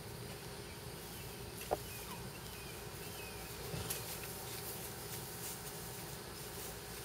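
Faint outdoor background with a few short, thin bird calls around the middle and a couple of light clicks.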